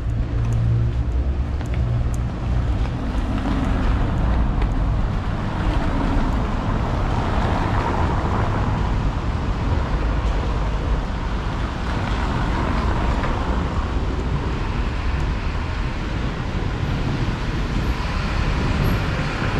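City traffic on wet streets: a steady hiss of tyres on wet road with a low rumble, swelling twice in the middle as vehicles pass.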